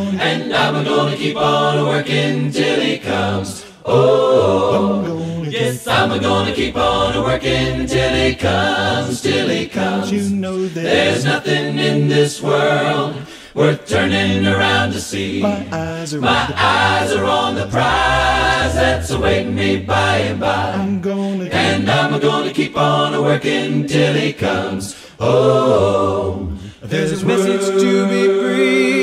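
A cappella vocal group singing in harmony, voices only without instruments.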